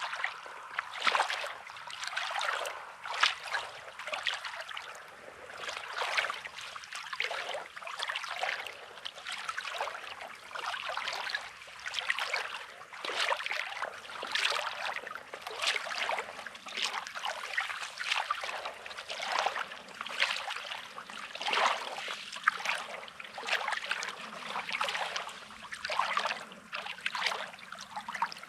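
Small sea waves washing and trickling over a rocky, pebbly shore, with footsteps crunching on coarse sand about once a second.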